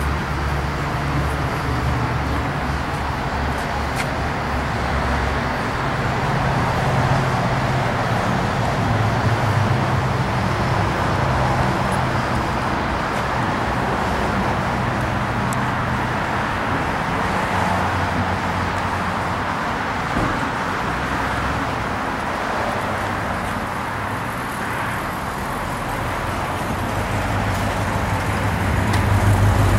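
Car engine and traffic noise: a steady low engine hum over a wash of road noise, swelling louder near the end.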